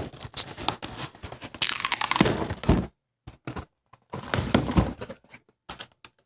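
Kitchen knife cutting open a shipping package: a run of crackles and scrapes from the tape and packaging, with a longer ripping stretch about two seconds in and more crackling near the middle.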